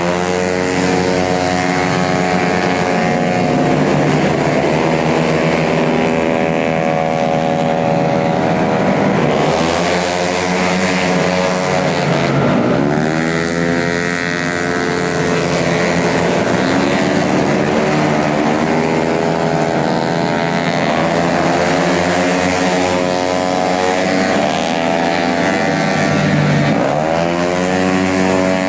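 Tuned 150cc automatic racing scooters running hard, their high-revving engines passing one after another, each pitch sweeping and dropping sharply as a machine goes by.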